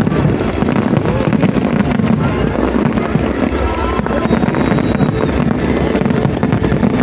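Fireworks going off continuously: a dense, unbroken run of bangs and crackles.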